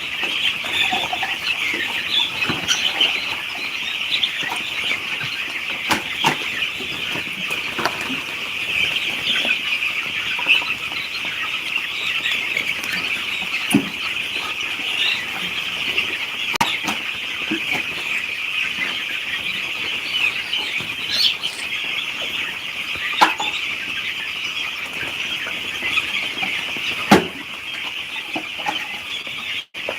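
A large flock of poultry chicks peeping continuously in a dense, high-pitched chorus, with scattered short clicks and knocks.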